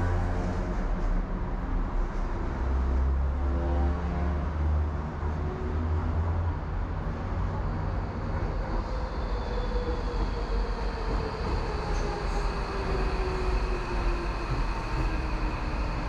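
Docklands Light Railway train running, heard from inside the carriage: a steady rumble of wheels on track, with a whine that slowly falls in pitch in the second half.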